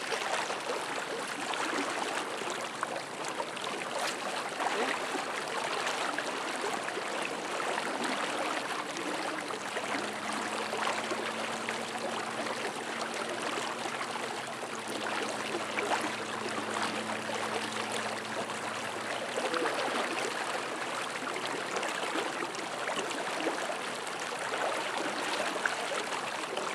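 Rushing, churning water of a flooded river, a steady wash of noise throughout. A faint low hum comes in at about ten seconds and fades out at about nineteen.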